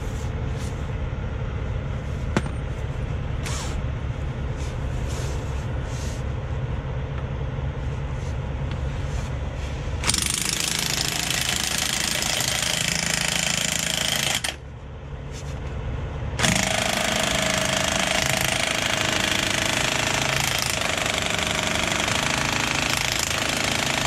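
Impact wrench hammering on the driveline bolts to drop the driveshaft. It runs hard from about ten seconds in, stops for about two seconds, then runs again. Before it there is a steady low rumble with a fast pulse.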